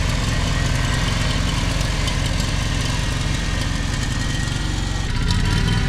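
Stiga Park Royal ride-on mower's engine running steadily as the mower drives off across the lawn.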